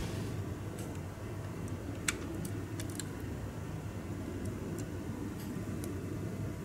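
Faint clicks and taps of metal tweezers on small plastic model parts as a radiator is set into a scale-model engine bay, with one sharper click about two seconds in, over a steady low background hum.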